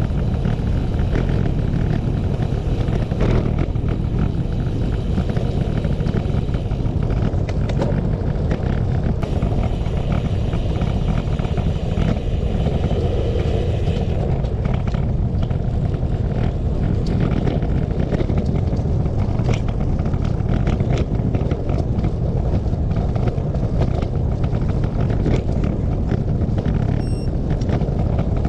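Wind rushing over the microphone of a moving bicycle: a steady low rumble with scattered clicks and rattles, and a higher hiss that drops away about halfway through.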